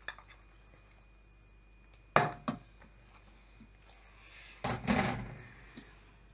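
Kitchen handling sounds: a sharp knock about two seconds in and a smaller one just after, from a wooden spoon in a plastic mixing bowl, then about a second of rubbing near the end as buttery, floury hands are rubbed together.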